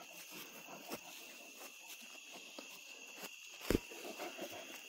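Crickets chirring steadily in the evening grass, faint. A few soft rustles and knocks are heard, and one louder short thump comes a little past halfway.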